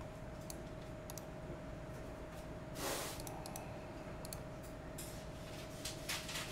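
Scattered computer mouse and keyboard clicks, with a brief louder rush of noise about three seconds in and a faint steady hum underneath.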